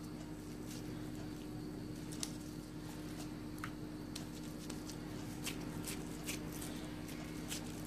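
Gloved hands patting and pressing moist bulgur kibbeh dough into flat pieces: faint soft squishing with scattered light clicks, more frequent in the second half. A steady low hum runs underneath.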